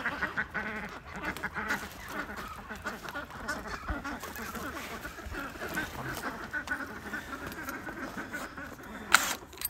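A flock of domestic ducks calling over and over, many short calls overlapping one another, with a sharp loud noise about nine seconds in.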